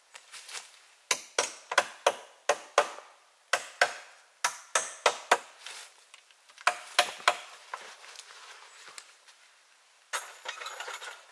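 Hatchet striking a wooden pole, sharp chopping blows at about three a second in three runs separated by short pauses. A brief rustle of wood and branches follows near the end.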